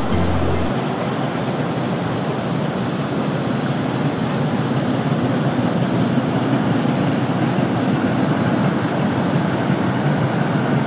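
Steady rumbling of a motor cargo barge passing on the river, mixed with the rush of water, slightly heavier in the second half.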